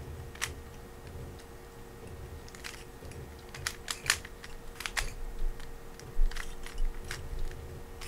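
Plastic Rubik's cube turned fast in a speed solve: quick, irregular clicking as the layers are spun, bunched most thickly in the middle, with a few dull low knocks in the second half, the loudest about six seconds in.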